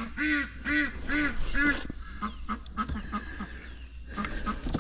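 Ducks quacking: a run of repeated calls, about two a second, that grow fainter after about two seconds.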